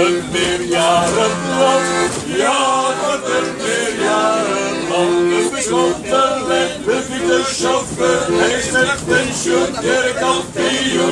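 Button accordion playing a song with a group of people singing along. The accordion's low chord is held at first, then pulses in short repeated strokes under the voices.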